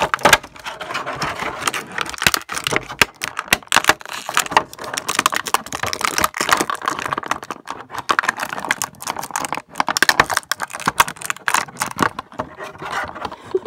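Clear plastic toy packaging crinkling as hands work a posable pony figure out of it: a dense run of irregular crackles and snaps.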